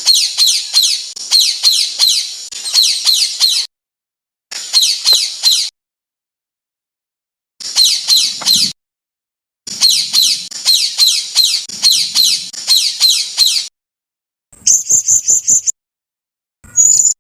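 Songbird song in an edited song-tutor (masteran) recording: runs of quick, high, downward-sweeping notes, each run starting and stopping abruptly between stretches of dead silence. Near the end, short bursts of a different, shriller steady trill.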